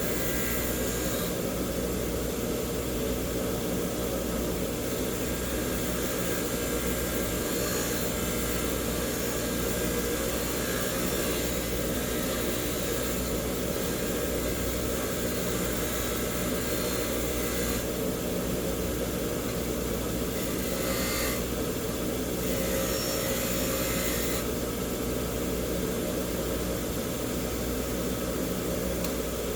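Bench grinder running steadily with a wire wheel, wire-brushing a small metal air chuck clean. A brighter scratchy hiss swells at times over the motor's steady hum.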